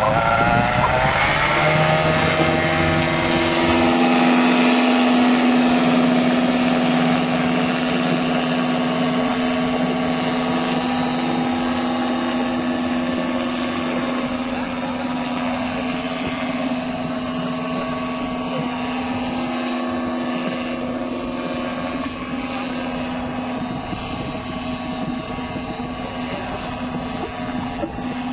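Paramotor engine and propeller revving up over the first couple of seconds, then running steadily at high power. It slowly grows fainter toward the end.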